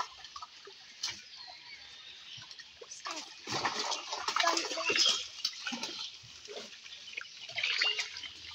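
Pond water splashing and sloshing in irregular bursts as a fishing net is hauled through it, busiest in the middle.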